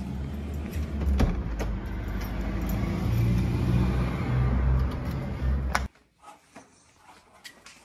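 A steady low rumble with a few sharp clicks of a key and handle working the lock of a PVC front door. The rumble cuts off suddenly about six seconds in, leaving only faint clicks.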